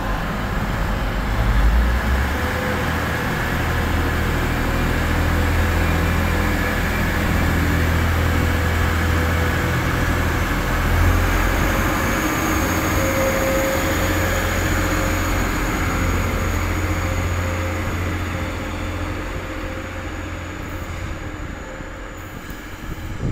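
TransPennine Express Class 185 diesel multiple unit drawing away from the platform: a steady low engine rumble with a faint high whine joining about halfway, fading over the last few seconds as the train moves off.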